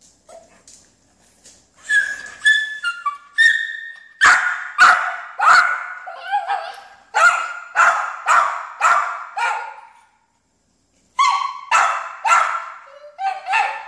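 Yorkshire terrier whining a few times, then barking in a quick run of yaps about two a second, pausing for a moment and barking again near the end: the dog is begging to be taken for a walk.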